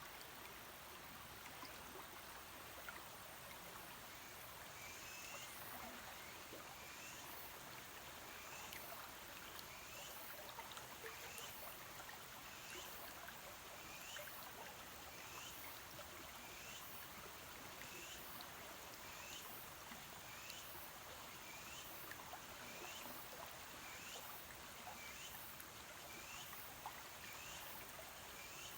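Shallow mountain river flowing, a faint steady rush of water. From a few seconds in, a short high chirp repeats about once a second over the water.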